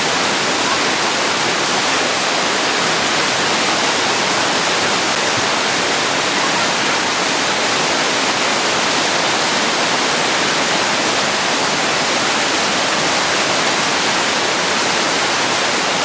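A waterfall's loud, steady rush of falling water, an even hiss with no breaks or changes.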